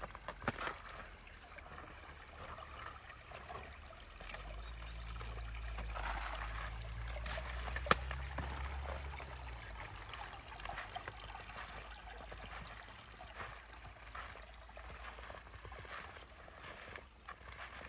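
A small woodland stream trickling steadily, with scattered light clicks, one sharp click about eight seconds in, and a low rumble from about four to ten seconds in.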